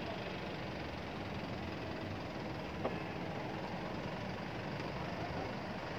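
Steady, engine-like background rumble, with one light click about three seconds in.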